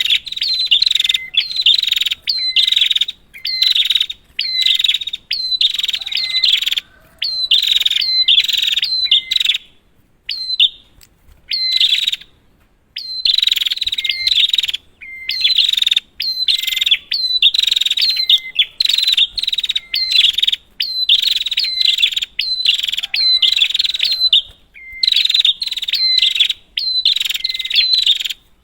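Prinia (prenjak) song: high-pitched bursts of rapid, sharp repeated chirping notes, each burst about a second long with short gaps between, and a pause of a few seconds near the middle.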